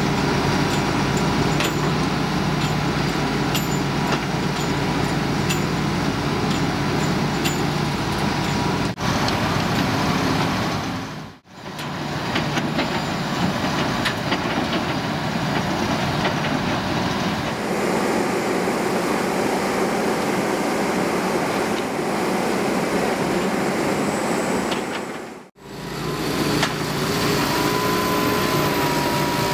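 Heavy diesel machinery running steadily under load: a Doppstadt DW-3060 slow-speed shredder and a Hitachi ZX250-3 crawler excavator breaking up tree stumps. Sharp cracks and knocks sound over the engines during the first several seconds, and the sound breaks off briefly twice at cuts.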